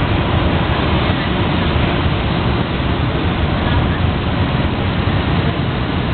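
NJ Transit Multilevel bilevel coaches rolling past close by as the train departs: a steady, loud noise of wheels on rail with a strong low rumble.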